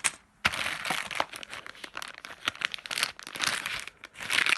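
Plastic packaging crinkling and rustling, with many small sharp crackles, as bagged board-game pieces are handled; it starts after a brief pause about half a second in.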